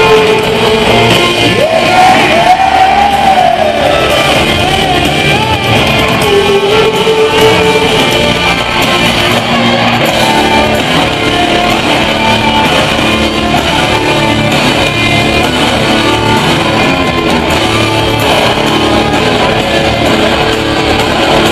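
Live rock band playing loudly, heard from the crowd in a large arena hall: electric guitars, bass and drums with vocals over them.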